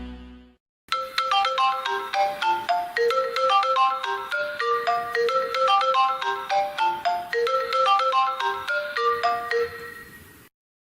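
A smartphone ringtone playing: a quick, repeating melody of short bright notes. It starts about a second in and fades out shortly before the end.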